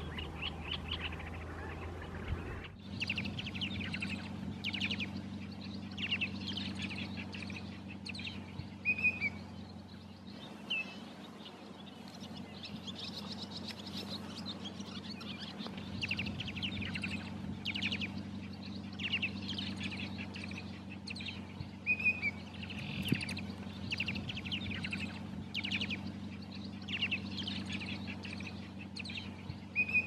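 A large mixed flock of migrating shorebirds peeping and calling: dense bursts of quick high chirps about once a second, with an occasional short slurred whistle, over a low steady hum.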